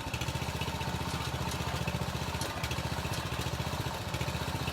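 Small engine of a hydraulic jacking machine running steadily with a fast, even pulse and a faint steady whine, powering the pier jacks as they lift a settled porch.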